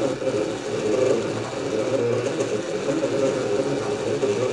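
Stepper motors of an F-bot 3D printer running as it prints, a steady mechanical whir whose tones shift as the axes change moves.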